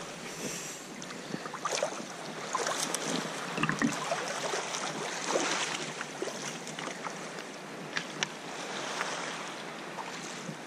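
Wooden paddle strokes dipping into calm seawater beside a wooden sea kayak, with irregular splashes, drips off the blade and water rushing along the hull.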